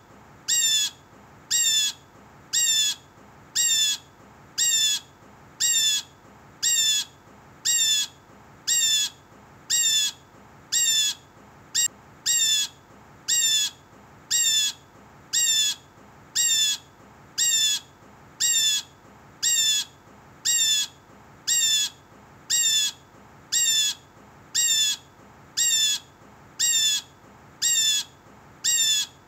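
Blue jay giving its harsh, descending 'jay' call over and over, evenly about once a second, each call short and the same loudness.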